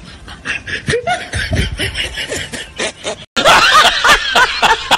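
Quieter mixed background sound, then, after a sudden cut about three seconds in, loud laughter dubbed over a laughing-monkeys meme.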